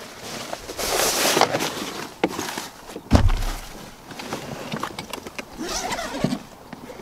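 Gear being handled in a car boot: padded fabric bags rustling and shifting, with a heavy padded rifle bag thudding down on the boot floor about three seconds in.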